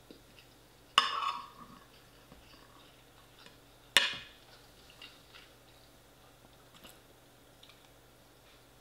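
Metal cutlery clinking sharply against a ceramic dinner plate twice, about a second in and again three seconds later, each clink ringing briefly. Faint chewing and small scrapes in between.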